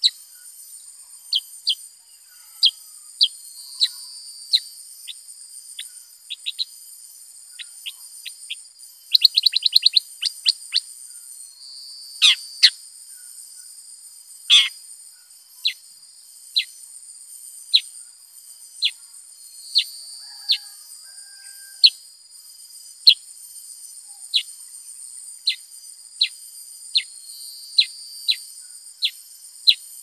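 Black-headed bulbul giving short, sharp chirps that slur downward, roughly one a second. About nine seconds in there is a quick rapid run of notes, with a few louder notes between twelve and fifteen seconds.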